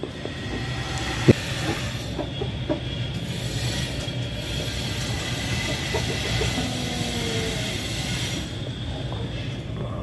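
Steady rumbling background noise that swells a little through the middle and eases near the end, with one sharp click about a second in.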